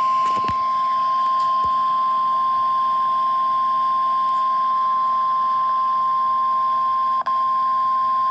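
Emergency alert attention tone: a single steady, loud beep near 1 kHz held for about nine seconds, with a brief break about seven seconds in. It is the kind of warning alarm tone that NOAA Weather Radio sounds before a severe thunderstorm warning is read out.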